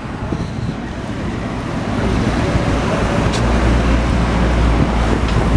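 City bus diesel engine rumbling with street traffic noise, the deep rumble growing louder over the second half.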